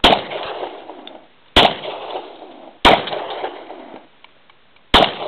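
Glock pistol firing four shots at an uneven pace, each sharp crack dying away over about a second.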